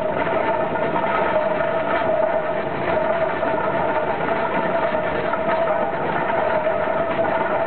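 1870 Fowler steam ploughing engine running along the road, heard from the footplate: a steady mechanical clatter and rumble of the engine and its gearing, with a steady high whine on top.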